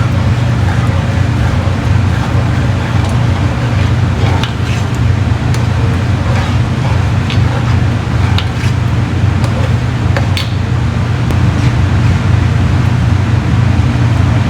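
A steady low hum with an even hiss over it and a few faint clicks.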